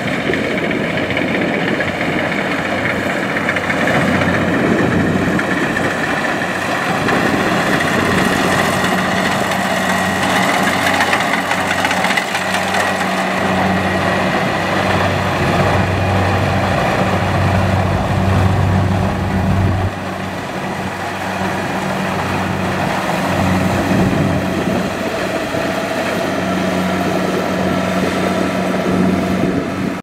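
Rice combine harvester running steadily, its diesel engine droning under the wide mechanical noise of the machine. The sound eases briefly about two-thirds of the way through.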